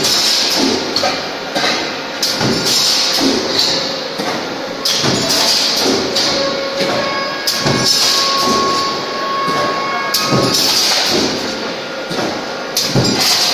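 Stamping press running a two-stage progressive die that punches holed flange segments from sheet-metal strip, striking about every two and a half seconds. Between strokes there is clatter from the strip feed, bursts of hiss and a steady machine hum.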